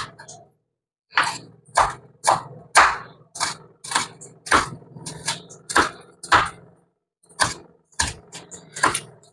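A run of sharp knocks, about two a second, with a short break about two-thirds of the way through, over a low hum.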